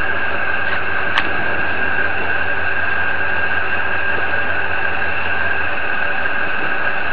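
Heavy machinery running steadily: a constant drone with a high, even whine over a low hum. There is a single light click about a second in.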